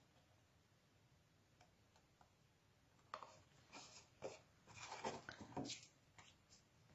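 Cardstock and a small cardstock box being handled on a cutting mat. After a quiet start, a cluster of paper rustles and light taps begins about three seconds in and dies away near the end.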